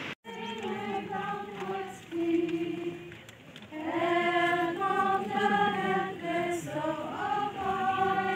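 A group of voices singing a slow hymn together in long held notes, with a short pause about three seconds in.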